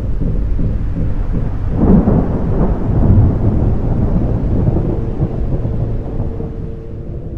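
A loud, deep rumble, swelling about two and three seconds in, then fading near the end.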